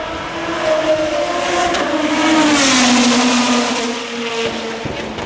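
Single-seater race car driving past at speed. The engine note falls in pitch as it goes by, and it is loudest about halfway through.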